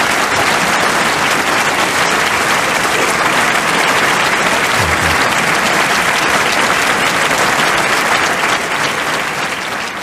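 Audience applauding, a dense steady clatter of many hands clapping that begins to fade near the end.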